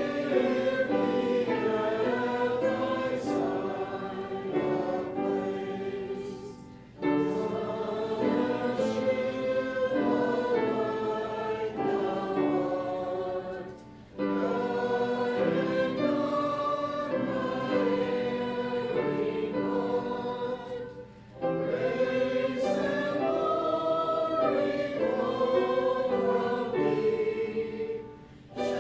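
A group of voices singing a hymn, in long phrases with a short break about every seven seconds.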